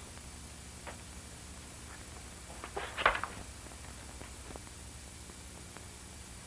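Steady hiss and low hum of an old film soundtrack, with a short cluster of rustling clicks about three seconds in, like loose sheets of paper being handled.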